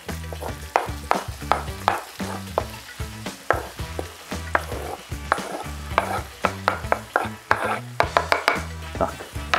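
Diced bacon and artichoke hearts sizzling in a frying pan as the artichokes are scraped off a wooden cutting board into the hot fat with a wooden spatula. Background music with a steady beat and a bass line plays underneath.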